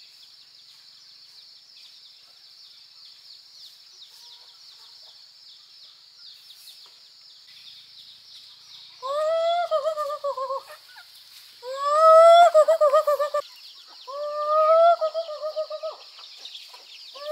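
Three loud, drawn-out farm-animal calls, each about a second and a half long, starting about halfway through; each rises at the start, then holds with a fluttering waver. A fourth call begins at the very end. A steady high-pitched buzz runs underneath throughout.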